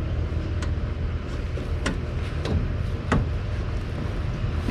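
A few light clicks and knocks as the legs of a folding camp table are raised and set, over a steady low hum.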